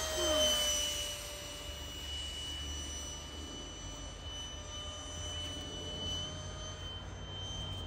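64 mm electric ducted fan of a foam-board RC jet in flight, giving a steady high-pitched whine. Its pitch dips slightly about half a second in and rises a little again around six seconds.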